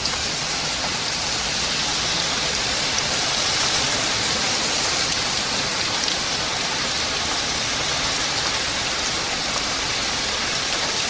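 Rain falling steadily, an even hiss that holds constant.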